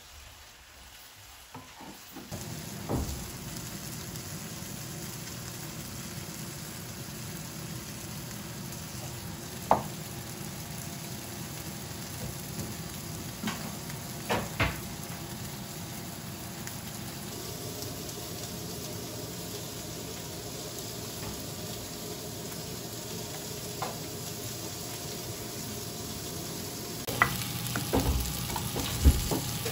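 Food frying in oil in pans on a gas hob, first eggplant being stir-fried, then whole small fish: steady sizzling. A few sharp knocks of the spatula against the pans and dishes come through it, several of them close together near the end.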